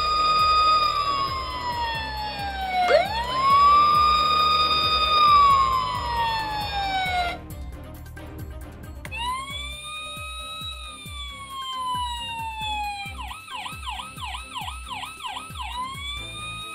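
Electronic sirens of toy fire trucks. The first wails loudly, rising and slowly falling twice, and cuts off about seven seconds in. A quieter second siren follows with a wail, a fast yelp of about three cycles a second near the end, then another wail.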